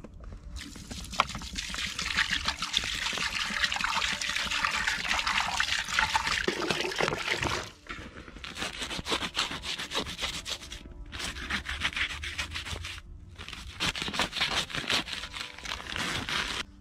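Water poured from a large plastic jug into a plastic bucket: a steady splash for about seven seconds that stops abruptly. After that comes irregular rustling and scraping as a paper sack is cut and torn open.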